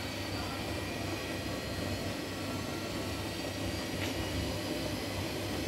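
Front-loading washing machine running a wash cycle, the drum turning wet, sudsy clothes, with a steady low hum.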